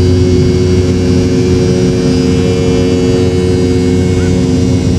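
Airliner engine drone heard in the passenger cabin: a loud, steady hum with several held tones layered over it.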